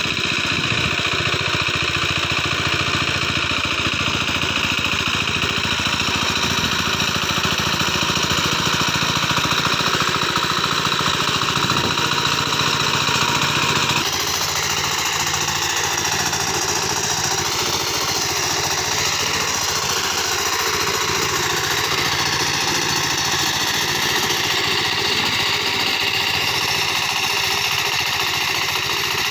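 Hand tractor's small engine running steadily under load as it pulls a plough through a muddy rice paddy, with a fast, even chugging. The sound shifts abruptly about halfway through.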